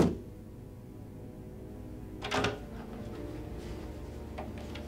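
Low, sustained background music, with a short door sound about two seconds in.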